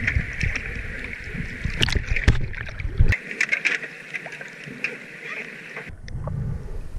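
Rushing, splashing river rapids heard at the surface through a waterproof action camera's housing, with scattered knocks and clicks of handling. Near the end the camera goes underwater and the sound suddenly turns to a muffled low rumble.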